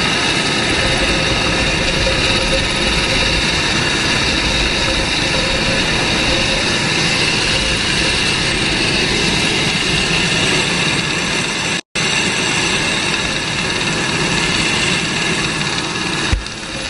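Military helicopter cabin noise through an open side door in low flight: a steady turbine whine over a dense rush of rotor and wind noise. The sound cuts out for an instant about twelve seconds in.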